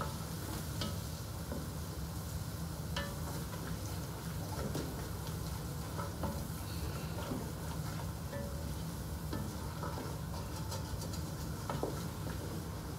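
A wooden spatula stirs food in a large aluminium pot, with scattered knocks and scrapes against the metal. The food sizzles steadily underneath, over a low steady hum.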